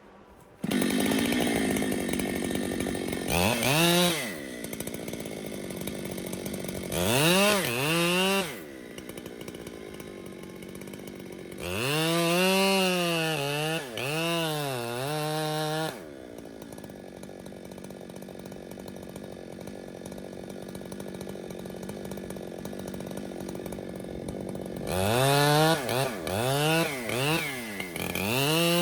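Gas chainsaw revving in repeated bursts and cutting into a tree, its pitch sagging and recovering under load. It settles to a steady idle for several seconds in the middle, then revs up again near the end.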